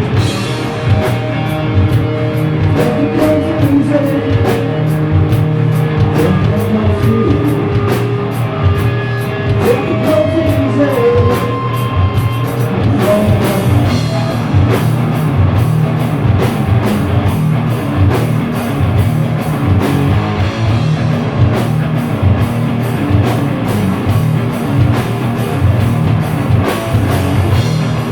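Live stoner metal band playing loud, with distorted electric guitar, bass and a drum kit keeping a steady beat of drum and cymbal hits. A guitar melody of long held, bending notes runs through the first half, and the band plays on as a thick riff after that.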